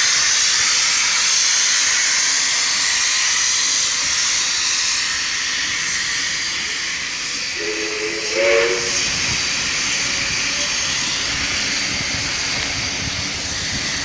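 Steam locomotive 5917 hissing steam steadily, the hiss slowly fading. About eight seconds in comes a short whistle blast of about a second, several tones sounding together.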